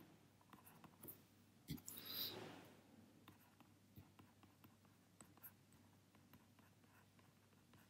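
Faint taps and clicks of a stylus writing on a tablet screen, over near-silent room tone, with a brief soft rush of noise about two seconds in.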